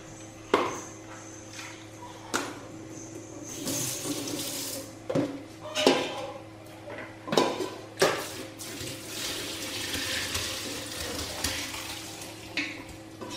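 Cheese curds and whey being scooped with a wooden spoon from a large aluminium pot into a plastic strainer in a stainless steel sink. The spoon knocks against the pot several times, and whey splashes and pours into the sink, with a longer pour about two-thirds of the way in.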